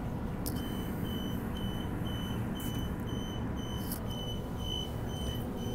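High electronic beeps repeating steadily, a little over two a second, starting about half a second in: the door warning of a Transperth Bombardier-Downer electric train stopped at a station. Under it runs the train's low hum, with a few light knocks.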